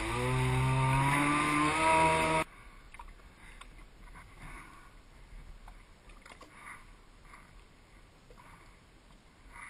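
Kawasaki 550 jet ski's two-stroke twin running under throttle, its pitch rising, then breaking off suddenly about two and a half seconds in. After that come faint light knocks and soft water sounds as the engine hood is handled in shallow water.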